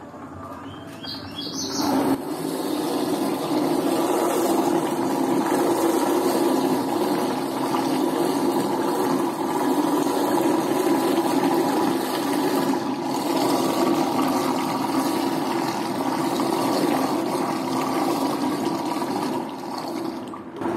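Electric stirrer switched on about two seconds in with a brief rising whine, then running steadily, its shaft churning a bucket of liquid soap mixture of used cooking oil and caustic soda.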